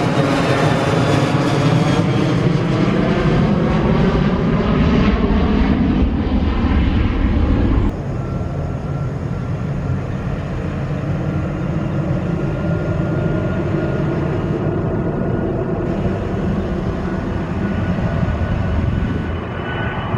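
Airliner engines running loud and close, with a sweeping, phasing sound as the aircraft passes. About eight seconds in the sound changes abruptly to a steadier, slightly quieter engine noise with a thin high whine.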